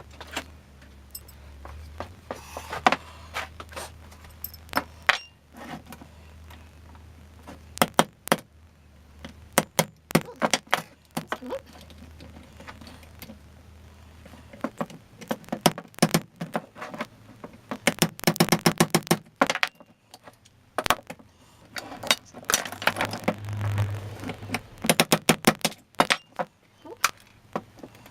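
Sharp metallic taps and clinks of tools on a breast drill's steel parts, some single and some in quick runs. A low hum stops about halfway through.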